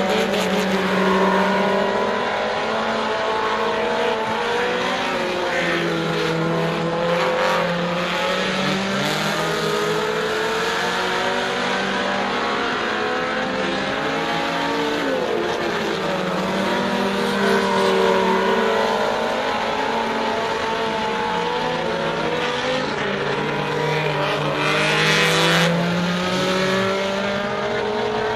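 Several four-cylinder superstock race cars running laps on a dirt oval, their engines overlapping and rising and falling in pitch as they accelerate out of and back off into the turns. The sound swells as cars pass closest, most strongly a little before the end.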